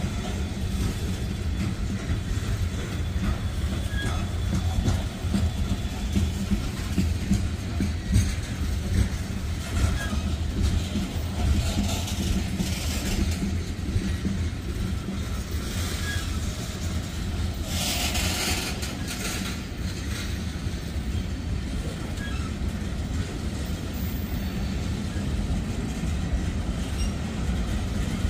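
Freight cars of a slow-rolling manifest train passing close by, covered hoppers and then tank cars, with a steady low rumble and clatter of steel wheels on the rails. A few brief high hissing swells come near the middle, the strongest about two-thirds of the way through.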